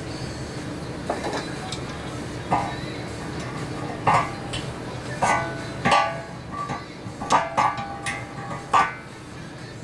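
Metal pipe fittings and a wrench clinking and knocking against each other as fittings are threaded onto an air tank. There are several short ringing clinks, starting about four seconds in, over a low steady hum.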